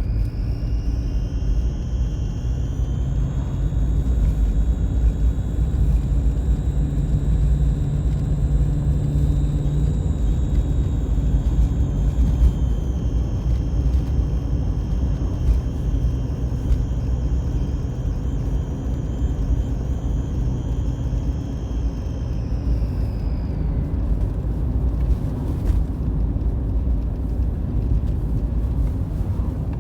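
High thin whistle from under the bonnet of a Mitsubishi Pajero IV 3.2 diesel on the move, over a steady low rumble of engine and road. The whistle rises in pitch over the first few seconds, holds, steps down a little about halfway through, then falls and fades out a few seconds before the end. It is an unexplained whistle or whine that comes only while driving and is absent when the car stands still.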